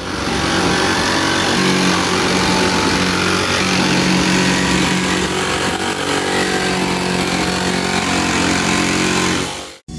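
Corded jigsaw running steadily, its blade cutting through the sheet-metal roof of a car to open a hole for a sunroof. It cuts off abruptly near the end.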